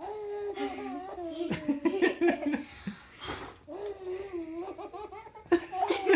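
Nine-month-old baby laughing in two long runs of giggles. A short puff of breath from someone blowing at the birthday candles comes between them, a little after three seconds in.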